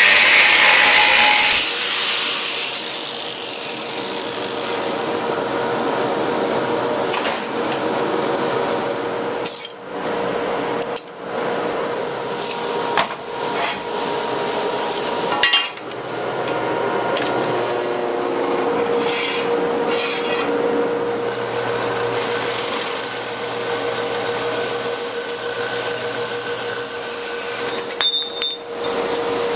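Angle grinder cutting steel for the first couple of seconds, then steadier machine and tool noise with a hum, broken by abrupt changes where shop sounds are cut together.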